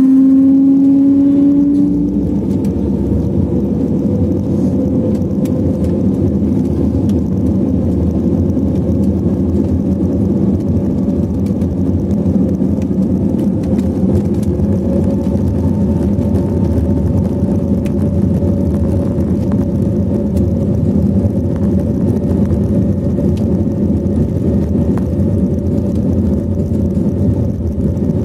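Airbus A320neo jet engines at takeoff power, heard from inside the cabin over the wing during the takeoff roll. A rising engine whine levels off about two seconds in, then a steady loud roar of engines and rumble of the runway run on, with a faint tone slowly climbing.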